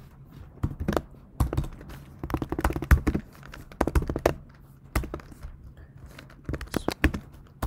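Typing on a computer keyboard: irregular clusters of keystroke clicks with short pauses between them.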